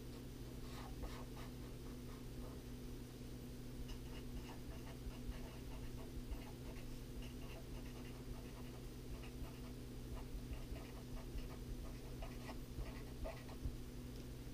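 Felt-tip marker writing on paper: faint, short scratchy strokes coming in little clusters as letters are formed. A steady low hum runs underneath.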